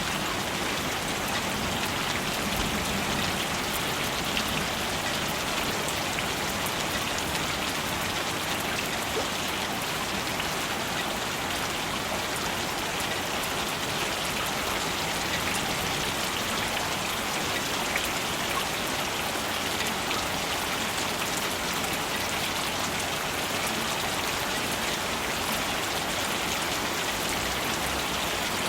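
Steady rain falling, a dense even patter of drops hitting surfaces, with no thunder.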